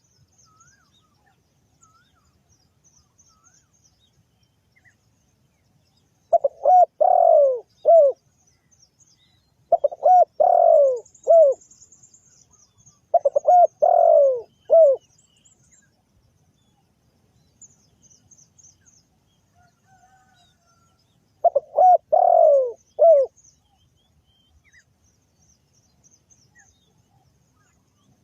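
Spotted dove cooing: four phrases spaced several seconds apart, each a short stutter of notes followed by two drawn-out, falling coos and a brief final note. Faint high chirping of small birds underneath.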